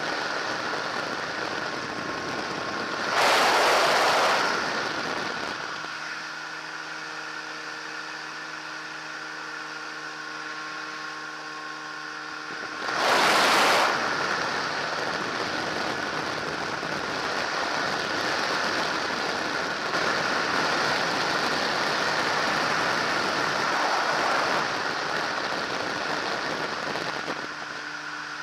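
Microlight trike in flight: the engine's steady drone under heavy wind rush on the microphone. Two brief, much louder gusts of wind noise hit about 3 s and 13 s in, and the engine's tones stand out more clearly for a few seconds between them.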